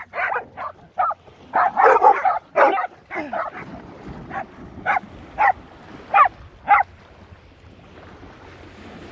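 Dogs barking: a quick run of barks in the first few seconds, then single barks about every half second until about seven seconds in. Under the barking is splashing as the dogs run into the water.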